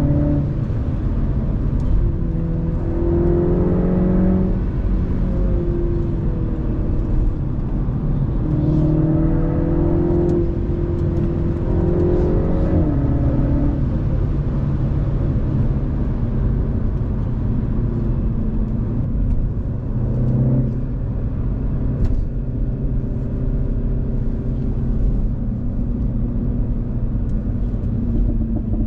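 Mini Cooper S F56's turbocharged 2.0-litre four-cylinder, on its stock exhaust, pulling through the gears. The engine pitch climbs and then drops at each shift several times in the first half, then runs steadier with smaller rises, over constant road noise.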